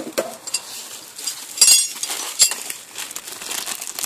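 Clear plastic bags of mounting hardware crinkling as they are handled, in quick irregular crackles, with the loudest bursts about one and a half and two and a half seconds in.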